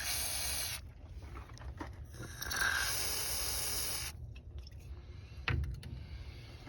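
WD-40 aerosol can spraying in two bursts of hiss, a short one and then a longer one of about two seconds, followed by a single light knock near the end.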